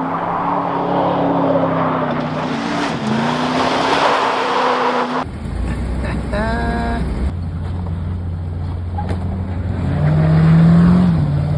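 Car engine running with a steady hum and road noise; after an abrupt cut about five seconds in, a deep low rumble, a brief high chirp, and near the end an engine revving up louder.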